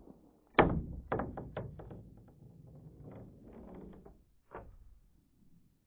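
A quick string of 9mm shots from an FN 509 Tactical semi-automatic pistol, fired rapidly with uneven short gaps. The first shot, about half a second in, is the loudest, and the last comes about four and a half seconds in.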